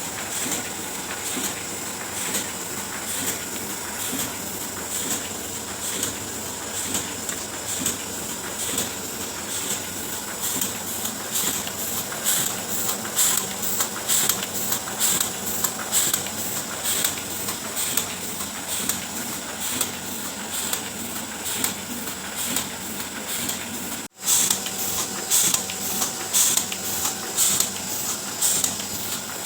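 Oliver 72 sheet-fed offset printing press running, a steady mechanical rhythm of rapid clicks over a hiss. The sound drops out for an instant about three-quarters of the way through.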